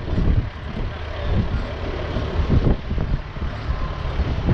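Wind gusting on the microphone over the low, steady running of a rollback flatbed truck's engine.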